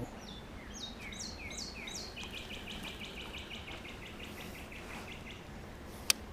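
A songbird singing: a series of clear notes sliding down in pitch, then a fast, even trill of about twenty notes that stops after a few seconds. A single sharp click sounds near the end.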